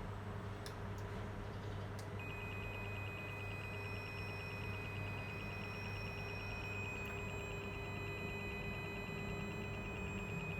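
A steady high-pitched electronic tone with a fast, even ticking in it starts about two seconds in, over a low steady electrical hum; a few sharp clicks come just before the tone.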